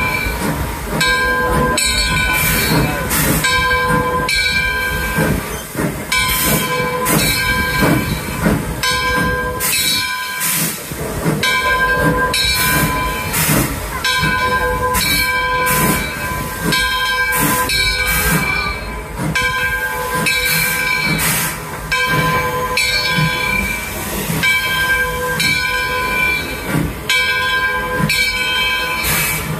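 Arcade & Attica steam locomotive #18, an Alco 2-8-0, working with its train: a slow, regular beat of exhaust chuffs about once a second, with a ringing metallic tone that comes and goes.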